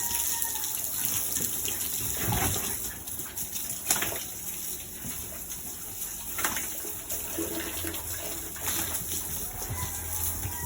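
Running water splashing as piglets are bathed, with a few sharp splashes or knocks about two and a half, four and six and a half seconds in.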